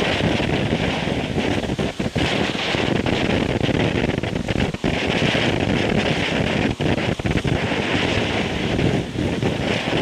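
Low-noise ground firework fountain burning with a steady hiss of spraying sparks, broken by a few brief crackles and dips.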